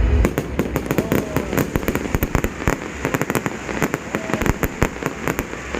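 Fireworks crackling overhead: many sharp pops in quick, irregular succession for about five seconds, thinning out near the end.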